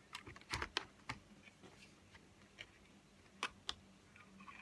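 Faint, scattered clicks of fingers pressing keys and buttons on a MacBook Pro laptop keyboard: a few in the first second and two more about three and a half seconds in.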